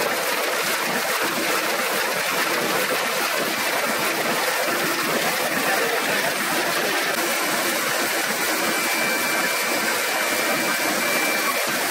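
Old sheet-fed printing press running: a steady, dense mechanical noise, with a faint high steady tone coming in about eight seconds in.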